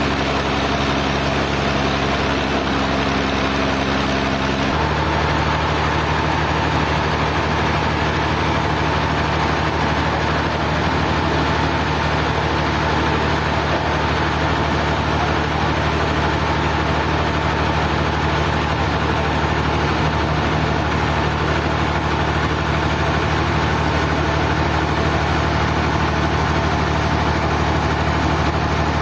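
Sawmill engine running steadily with an even drone. About five seconds in its pitch pattern changes abruptly, then holds steady again.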